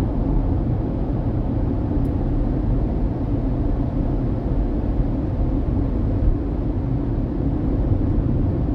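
Steady low road and engine noise of a car driving through a road tunnel, heard from inside the cabin.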